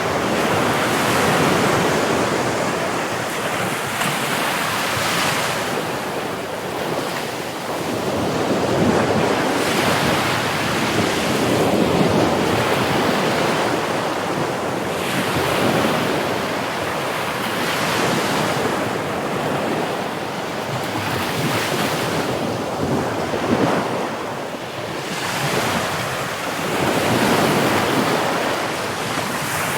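Sea waves washing onto the shore in a continuous rush, surging and easing every three to four seconds.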